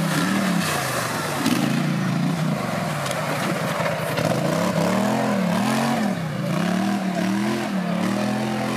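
Racing quad (ATV) engine revving up and down over and over, its pitch rising and falling about once a second as the throttle is worked.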